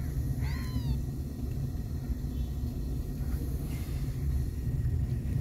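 A newborn kitten gives one short mew about half a second in, over a steady low rumble.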